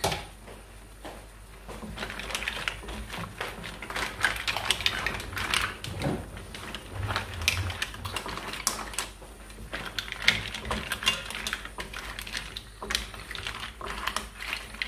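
Mussels in their shells being stirred in a pot, the shells clicking and clattering against each other and the pot in an irregular run of quick clicks and knocks.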